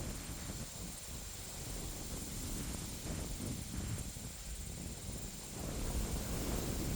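Wind gusting over an open field, buffeting the microphone with an uneven low rumble that grows stronger about five and a half seconds in.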